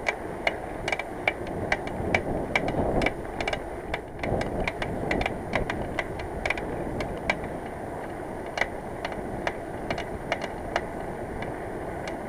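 Bicycle on the move, with sharp irregular clicks and rattles, about two or three a second, over steady road and wind noise.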